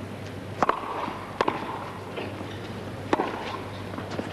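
Tennis ball struck by rackets in a rally: a serve about half a second in, then three more sharp hits spaced about one to two seconds apart.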